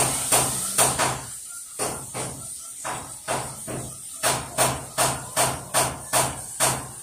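Sharp slaps in a steady rhythm, about two and a half a second, as hands strike during a massage. They are louder in the first second and again from about four seconds in, over a faint steady hiss.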